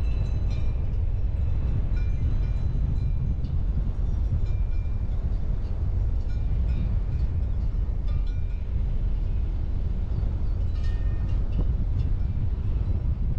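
Car on the move: steady low rumble of engine and road noise, with a few faint clicks and rattles, a small cluster about eleven seconds in.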